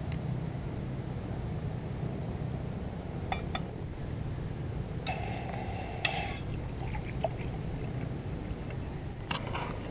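Water poured from a plastic bottle into a stainless steel mug on a canister gas stove, splashing in a few spells, with light metal clinks; the stove's burner runs with a steady low hum underneath.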